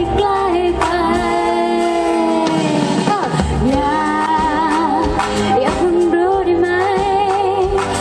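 A woman singing a pop song into a microphone with a live band accompanying her; her voice wavers and glides in pitch on held notes.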